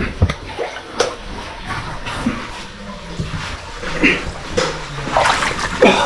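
Water splashing and sloshing in irregular strokes as people wade through a flooded cave passage.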